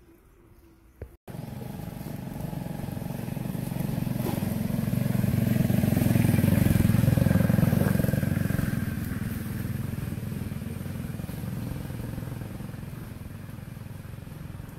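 Engine noise of a motor vehicle driving past, starting abruptly about a second in, swelling to a peak in the middle and slowly fading away.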